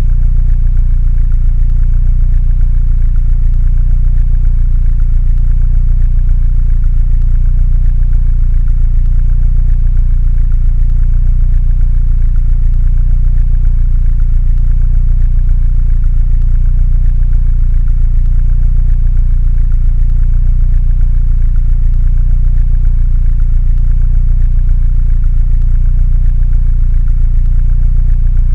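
Mini Cooper engine idling steadily, a low, even sound with no change in speed.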